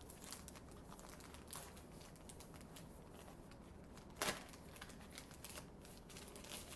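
Faint rustling and crinkling of puzzle packaging being handled, with scattered small clicks and taps; the sharpest click comes about four seconds in.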